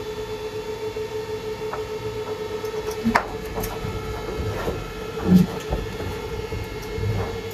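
A steady electrical hum, with a few scattered knocks and dull thuds, the clearest about three seconds in and again just after five seconds.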